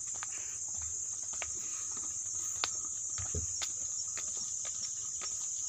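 Steady high-pitched drone of insects in the mangrove forest, with a few faint footfalls on the dirt path.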